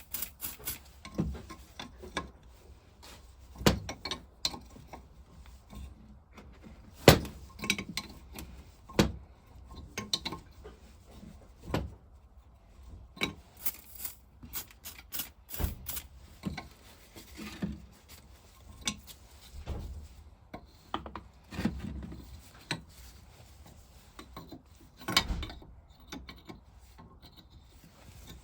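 Hand tools clinking, knocking and scraping at irregular intervals on a tight, heat-seized fitting of an old engine's vaporiser, the sharpest knocks about 7 seconds in and again near the end.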